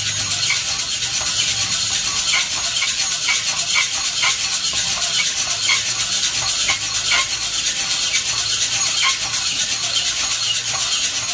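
Coffee beans tumbling and rattling inside a hand-turned mesh drum roaster, early in a slow roast. A steady shaking rustle with a soft clack about twice a second as the beans fall with each turn.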